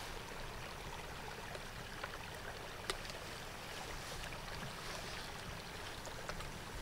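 Steady outdoor rushing noise, with a few faint clicks and taps from handling a small plastic bottle while a grasshopper is put inside.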